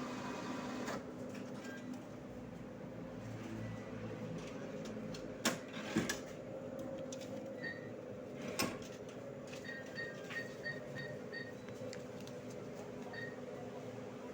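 ATM keypad beeping as buttons are pressed: one short beep, then a quick run of about six, then two more near the end. Under it runs the steady hum of the machine, and a few sharp clicks come around the middle.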